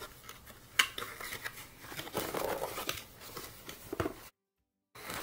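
Stiff cardboard being handled and fitted together: light rustles and small clicks, with a sharper click about a second in and a longer scraping rustle in the middle. The sound cuts out to dead silence for about half a second near the end.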